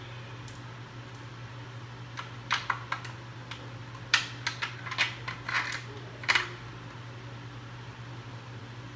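Irregular sharp clicks and knocks from a conga's tuning hardware as it is handled and pulled into place around a new rawhide head, clustered from about two to six and a half seconds in. The loudest clicks come about four seconds in and just after six.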